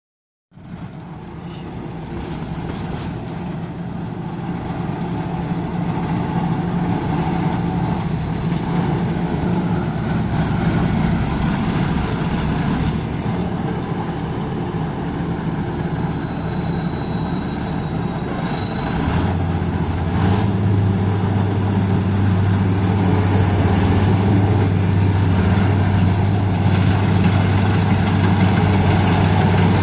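Rice combine harvester engine running steadily, with a faint high whine wavering up and down in pitch above it. About two-thirds of the way through, the engine note shifts lower, then settles into a new steady note a little over a second later.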